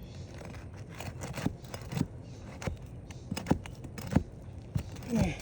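A metal pry tool scraping and clicking against asphalt shingles and a roofing nail as the nail is worked loose, in irregular sharp clicks and scrapes. The nail head has slipped right through the thin, brittle shingle.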